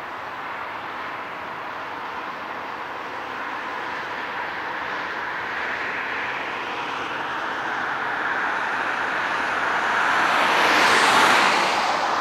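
The four General Electric GEnx turbofan engines of a taxiing Boeing 747-8F make a steady jet rush that grows louder. It swells to a brighter, hissing peak near the end as the aircraft turns away.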